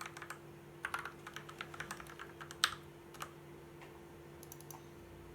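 Typing on a Fantech MAXFIT61 mechanical keyboard fitted with lubed Gateron G Yellow linear switches: quick runs of keystrokes with one louder stroke, thinning out about three seconds in to a few faint clicks.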